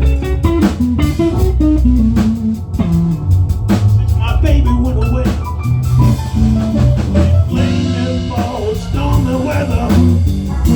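Blues band music: guitar over bass and drum kit, steady and loud.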